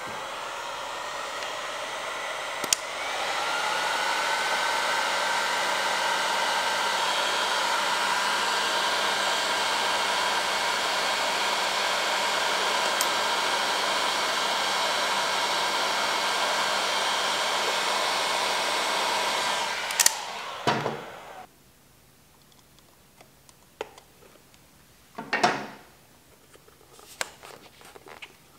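Heat gun blowing hot air onto an old rubber motorcycle fork boot to soften it. Its fan steps up in pitch and gets louder about three seconds in, runs steadily, then is switched off about twenty seconds in. A few light clicks and rustles of handling follow as the boot is worked by hand.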